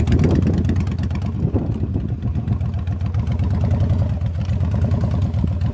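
Motorcycle engine running with a steady low rumble as the bike rides along a sandy dirt track, with rough road and wind noise over it.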